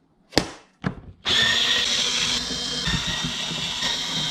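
Two clicks, then a Qihoo 360 S5 robot vacuum's motors start about a second in and run with a loud, steady high-pitched whine and grinding. This is the abnormal running noise of the fault that had made the robot too loud to use.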